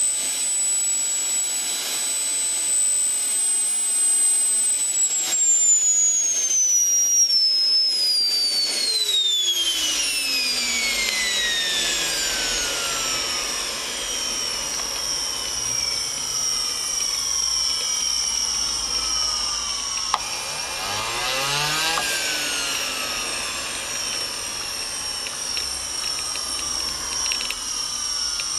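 JetCat model gas-turbine engine spooling down after shutdown: its high whine holds for about five seconds, then falls steadily in pitch as the rotor slows toward low rpm. A brief rise and fall in pitch comes around twenty seconds in.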